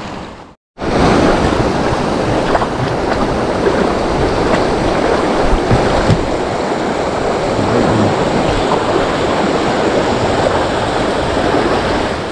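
Shallow river current rushing over rocks close to the microphone: a loud, steady rush of water that starts after a brief dropout less than a second in.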